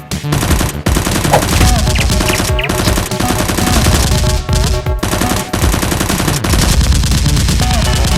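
Rapid, sustained automatic gunfire sound effects, many shots a second, over electronic background music.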